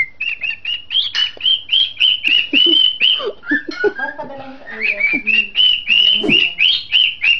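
Cockatiel singing loudly: a fast, unbroken string of short, shrill whistled notes, about three a second, with a few lower chirps mixed in.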